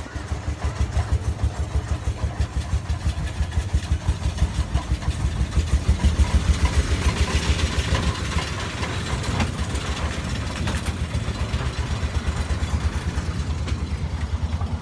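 Engine of a miniature toy ride train running with a steady, evenly pulsing low beat. It grows louder in the middle, as if passing close, then settles back.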